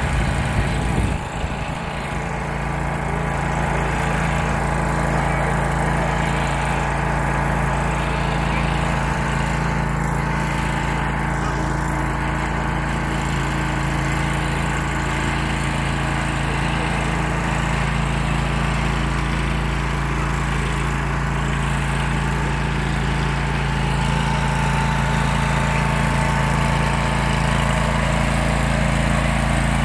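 Simplicity garden tractor's engine running steadily as the tractor drives across a lawn, with a brief dip in level about a second in.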